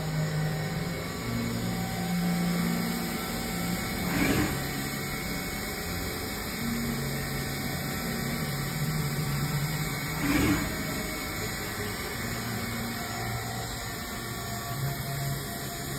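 Dugard Eagle 850 vertical machining center running a program: low machine hum whose tones shift pitch in steps every second or two as the axes move, with a brief louder rush about four seconds in and again about ten seconds in.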